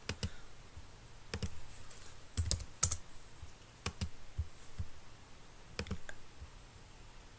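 Computer keyboard keys and mouse buttons clicking: a dozen or so short, separate clicks at irregular intervals.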